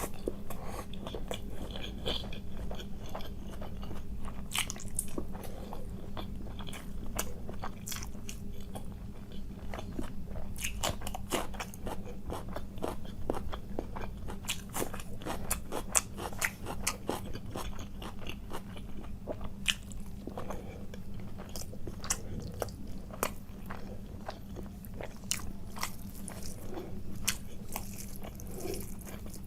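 Close-miked eating: steady chewing and biting with frequent crisp crunches, many short irregular mouth clicks, over a steady low hum.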